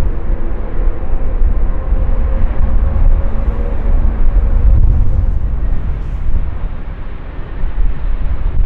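Jet engines of a wide-body airliner passing close by: a loud, steady low rumble, with a few faint engine tones that fade out about halfway through.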